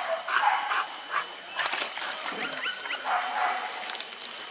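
A pack of hunting dogs barking, with short rising whines about halfway through; barks come near the start and again about three seconds in.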